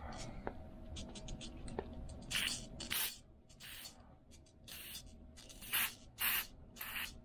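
Aerosol carb and choke cleaner sprayed in about seven short hissing bursts into a Tillotson HR carburetor's passages, cleaning it during a rebuild. The bursts start about two seconds in, with faint handling clicks before them.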